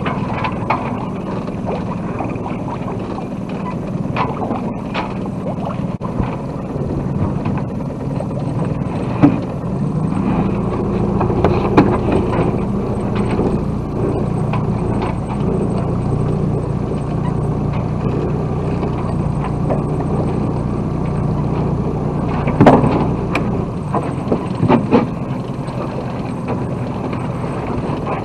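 A boat engine runs steadily, a constant low hum with water and hull noise over it. A few sharp knocks sound from on board: one near ten seconds in, one near twelve, and two close together about twenty-three to twenty-five seconds in.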